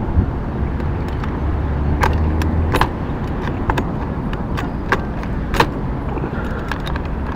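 Scattered sharp metallic clicks and clinks of hand tools and small parts being handled during a clutch swap, over a steady low rumble that swells briefly a couple of seconds in.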